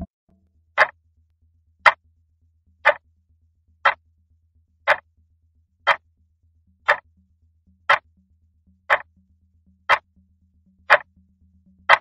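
Clock ticking, one sharp tick each second, over a faint low hum.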